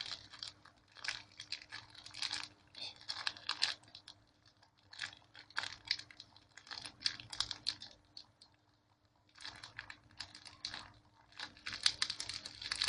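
Packaging crinkling and rustling as it is handled, in clusters of quick crackles with a couple of short pauses.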